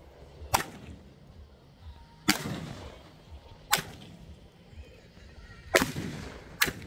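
Aerial fireworks going off: five sharp bangs at uneven gaps of one to two seconds, each trailing off in a short echo.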